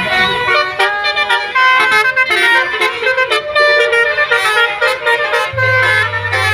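Bus telolet horn, a set of tuned air horns, playing a fast tune of short stepped notes. About five and a half seconds in, a low steady hum joins underneath.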